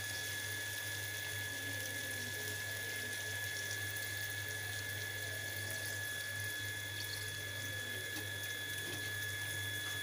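Eggs frying in hot oil in a kadai over a gas burner, a steady even sizzle with a faint steady high tone underneath.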